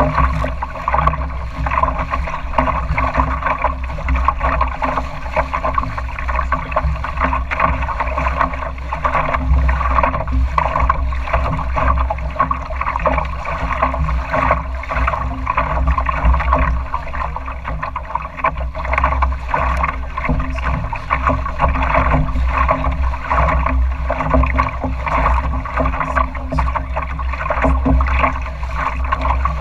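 Water rushing and splashing along the hull of a small sailing dory under way through choppy water, a steady wash with a deep rumble underneath.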